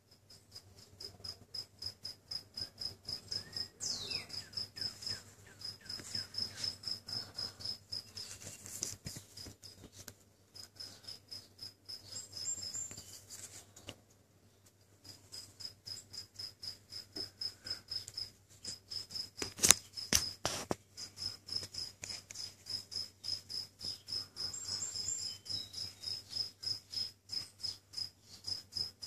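A cricket chirping steadily, a rapid even run of short high chirps about three or four a second, with two brief pauses. Two sharp clicks, the loudest sounds, come about two-thirds of the way through.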